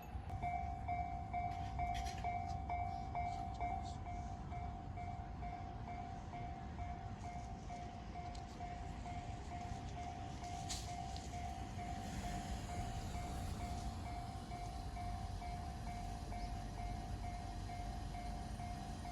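Japanese railroad crossing alarm ringing its evenly repeated electronic ding, starting about half a second in, the signal that a train is approaching. A low rumble runs underneath.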